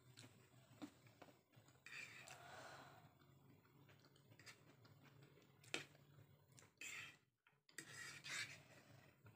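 Faint eating sounds while chowmein noodles are eaten: scattered light clicks and a few short soft rustles.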